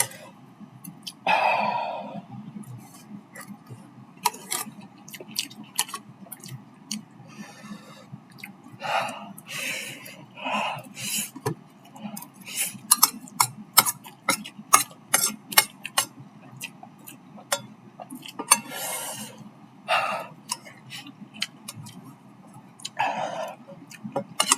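A person eating spicy instant noodles: chewing, with many light clicks and clinks of utensils against the dish, and a few short breathy throat sounds between bites.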